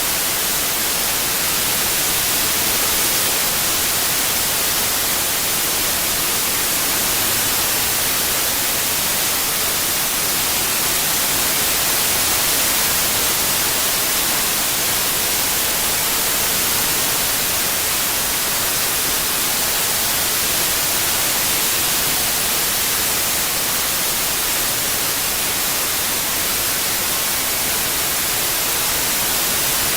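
Synthetic white noise: a steady, even hiss, brightest in the treble, with no change in level.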